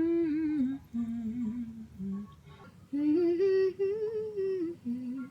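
A woman humming a tune without words, in four or five short phrases of held notes.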